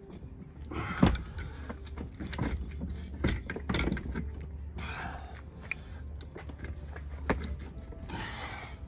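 Irregular metal knocks and clunks from a MerCruiser Alpha sterndrive as it is worked by hand onto the transom, with its splines not yet lined up. There is a hard knock about a second in and another about seven seconds in, with short scrapes between them, over a low steady hum.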